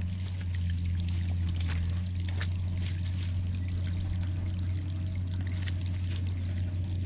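Water pouring and rushing through a culvert, with splashes breaking through a steady hiss, over a constant low hum.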